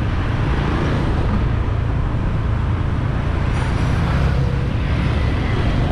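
Steady city street traffic heard from a moving vehicle: an even wash of engine and road noise with a constant low rumble.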